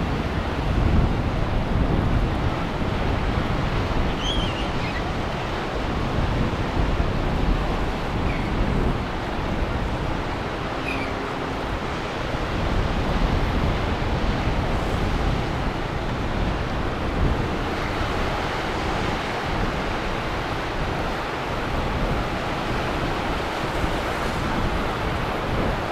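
Ocean waves and surf washing through an inlet, with wind buffeting the microphone.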